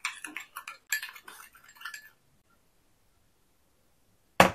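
Metal spoon clinking and scraping against a ceramic bowl as a sauce is stirred, a rapid run of small clicks lasting about two seconds. Near the end, one sharp knock of a wok set down on a glass induction hob.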